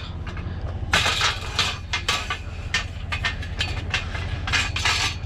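Irregular clanks and scrapes of scrap metal being shifted on a trailer load, starting about a second in, over a steady low hum.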